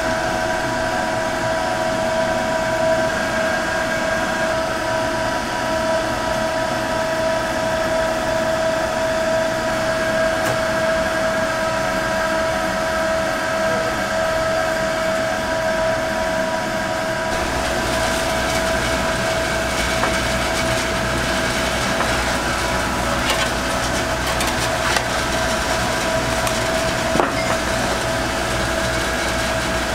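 Beaten egg sizzling and crackling as it cooks in rectangular egg-roll pans over gas burners, under a steady droning hum with several high steady tones. About halfway through, a deeper rumble joins and the crackles turn sharper and more frequent.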